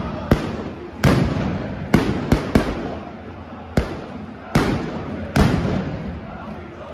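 Firecracker bangs, about eight in the first five and a half seconds and irregularly spaced, each with a short echo tail in the stadium, over a steady background din.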